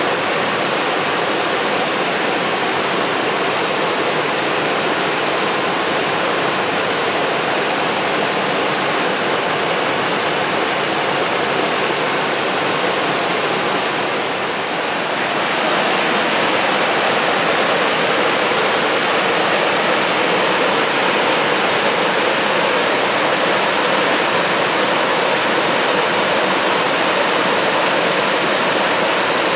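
Waterfall cascading over sloping rock ledges into a pool: a steady rush of water, dipping briefly about halfway through and then running a little louder.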